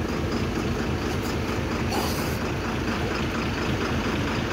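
A vehicle engine running steadily, with a brief high hiss about two seconds in.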